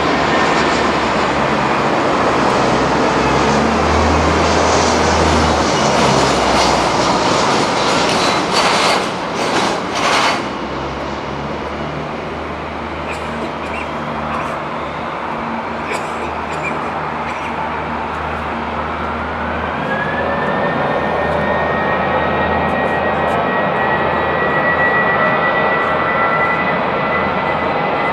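A Lufthansa Airbus A340-300's four CFM56 jet engines heard at close range during landing. The sound is a loud, steady rush over a low rumble, with a few short bursts of noise about nine to ten seconds in. From about nineteen seconds in, a high engine whine rises in pitch and then holds steady.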